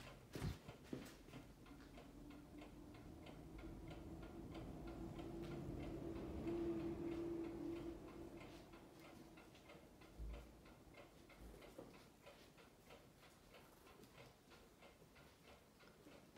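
Quiet room with a faint, rapid, regular ticking, and a low steady hum that swells to its loudest around the middle and fades out about ten seconds in; a soft low thump about ten seconds in.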